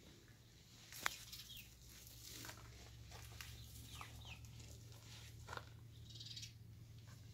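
Faint short, falling bird chirps here and there over a steady low hum, with a single sharp click about a second in.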